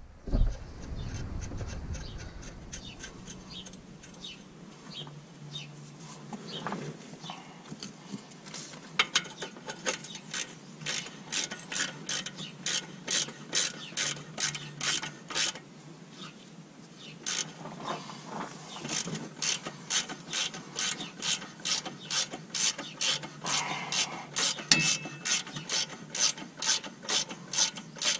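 Hand socket ratchet clicking in steady strokes, about two clicks a second, as it turns a bolt on a front sway bar bushing bracket. The clicking is faint at first, grows loud about a third of the way in, and stops briefly near the middle before starting again.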